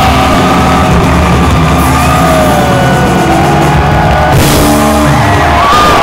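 Live rock band playing the closing bars of a song at high volume, heard from within the audience, with cymbal crashes about four and a half seconds in and again at the very end, and fans yelling.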